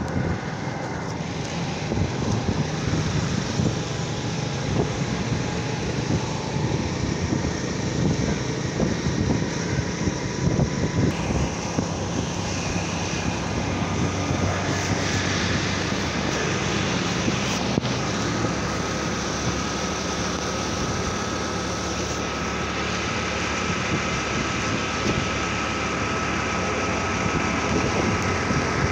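Motorcycle engine running steadily while riding, with rushing wind and buffeting on the microphone.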